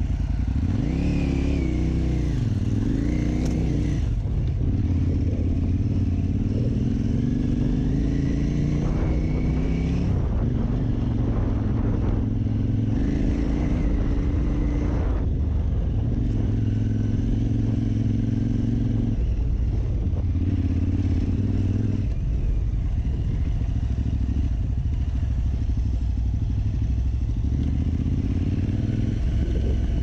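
KTM 950 Super Enduro's V-twin engine running under way, its revs rising and falling as the rider accelerates, shifts and rolls off. A clattering rattle runs along with it.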